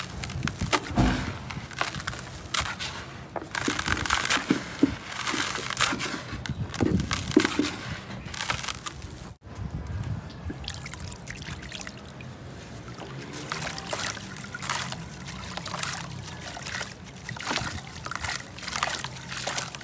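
Dusty sand-cement chunks crumbled by hand into a basin of water: crumbs trickling and pattering into the water, then soaked chunks squeezed and broken apart under water with sloshing and trickling. The sound cuts out for a moment about nine seconds in.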